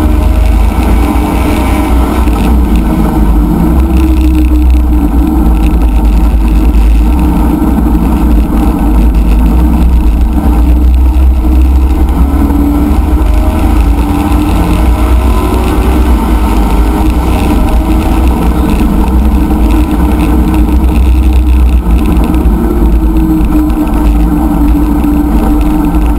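Chevrolet C5 Corvette race car's V8 engine running hard at racing speed, heard from inside the cabin together with road and wind noise. Loud and steady, with the engine note slowly rising and falling with the throttle.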